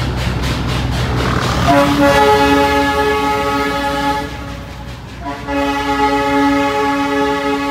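Darjeeling toy train's whistle sounding two long blasts, the first about two seconds in and the second about five and a half seconds in. A noisy hiss runs before the first blast.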